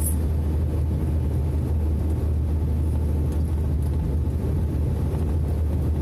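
Heavy truck's diesel engine and tyre noise heard from inside the cab while cruising on the highway: a steady low drone.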